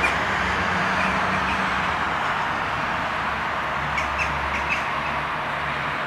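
Steady drone of city road traffic with a low engine hum, over which gulls give several short calls: a few in the first second and a half, and a cluster about four to five seconds in.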